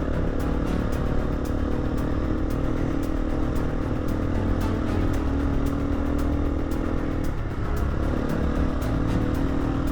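Single-cylinder KTM 350 dirt bike engine running steadily while riding, the note dropping briefly past the middle as the throttle eases off, with background music.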